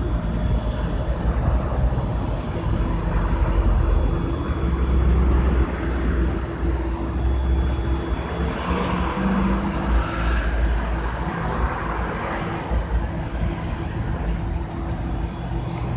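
City street traffic: a steady low rumble of cars and buses, with a brief louder hiss about halfway through.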